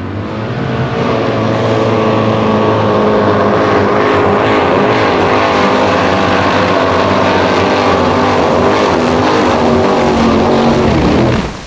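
Chevrolet-badged Formula Offroad buggy's engine at full throttle, climbing in pitch over the first second and then held high and steady, with the hiss of water spray as its paddle tyres skim across a pond. The engine note drops sharply near the end.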